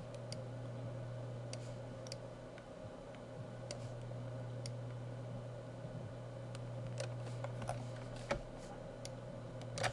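Computer mouse clicking now and then, sharp irregular clicks over a steady low electrical hum, with a louder click about eight seconds in and another near the end.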